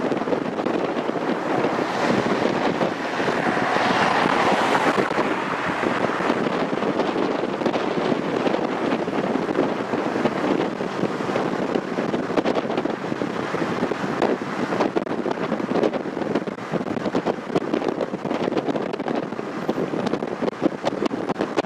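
Wind and road noise from a car travelling at speed: a steady rushing hiss with wind buffeting and crackling on the microphone, swelling briefly about four seconds in.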